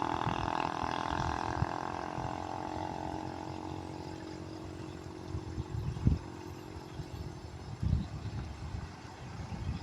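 A bus engine running at a steady pitch, fading away over the first few seconds as the bus drives off. Low thumps of wind on the microphone follow, the two strongest about six and eight seconds in.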